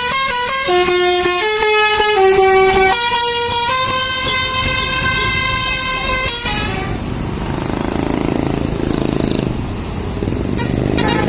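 Bus basuri 'telolet' multi-tone horn playing a tune: short notes stepping up and down for about three seconds, then one long held chord that cuts off about six and a half seconds in. Engine and traffic noise follows.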